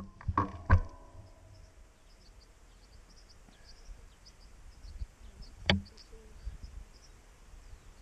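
Quiet open-air ambience with faint, short, high-pitched chirps recurring throughout. A few knocks and a brief creak come in the first second, and a single sharp click about six seconds in.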